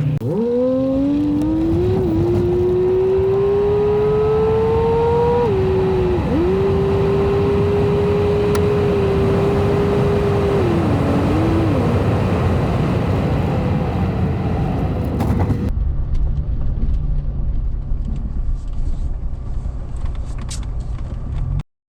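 A car accelerating on a highway. A whine rises in pitch, drops at a gear change about five seconds in, then holds steady at cruise before fading, over constant road and tyre rumble. About three-quarters of the way through the sound steps down to a quieter low road rumble, which cuts off just before the end.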